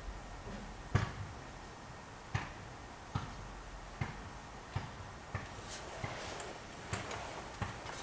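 A string of light clicks and taps, roughly one a second, from a hand working a plastic brake fluid bottle at a motorcycle's rear brake reservoir.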